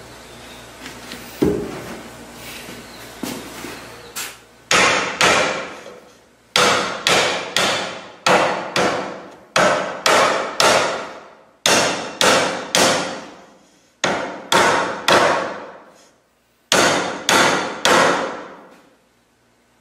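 Repeated striking blows knocking a hardwood panel's pins down into the slots of its mating board to close a wood joint. The blows come in quick groups of two to four, each ringing briefly, with short pauses between groups and a few softer knocks before them.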